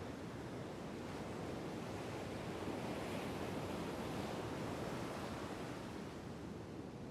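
Ocean surf breaking and washing up a beach: a steady rushing wash that swells a little midway and eases near the end.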